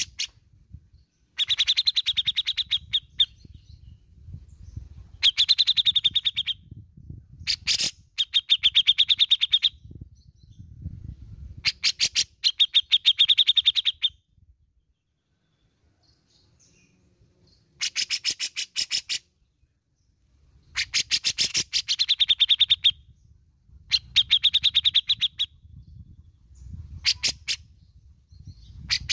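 Grey-cheeked bulbul (cucak jenggot) giving about nine bursts of rapid chattering notes. Each burst lasts a second or two, with short pauses between them.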